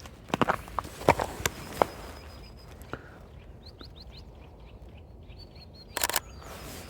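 Footsteps crunching on the ground for a couple of seconds, then a small songbird calling a quick run of high chirps, with a short loud rustle near the end.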